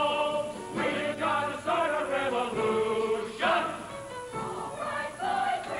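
A musical-theater chorus singing a show tune together with accompaniment, held notes and a gliding phrase in the mix.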